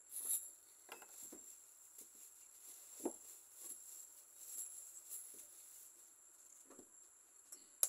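Quiet handling sounds of thin lumpia wrappers being peeled apart one by one on a table: faint soft rustles and light taps. One sharp click comes near the end.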